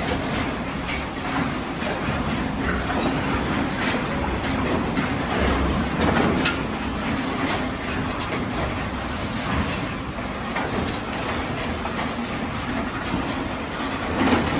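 Steady, loud din inside a pig barn: many pigs grunting and squealing amid clattering, with a brief hiss about a second in and again about nine seconds in.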